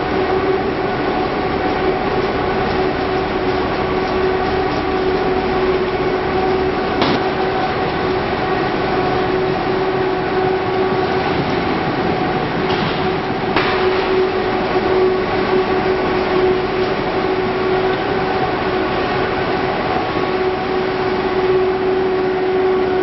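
Production-line machinery running steadily: a constant motor hum at one unchanging pitch over continuous conveyor rattle. A couple of sharp knocks stand out, about seven seconds in and again around thirteen seconds.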